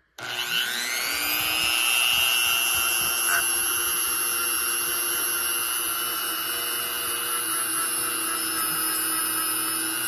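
Small electric power tool used for polishing, its motor spinning up with a rising whine and then running steadily at high speed before stopping abruptly near the end.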